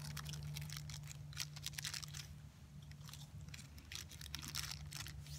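Ritz crackers crunching as they are bitten and chewed, a run of irregular sharp crackles.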